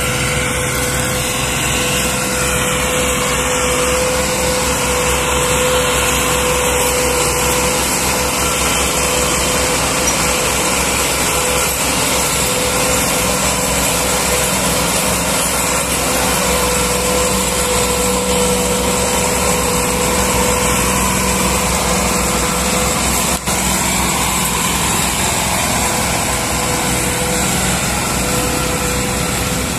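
Massey Ferguson 260 tractor's three-cylinder diesel engine running steadily under heavy load, pulling a trolley piled with sugarcane; the sound cuts out for an instant about three-quarters of the way through.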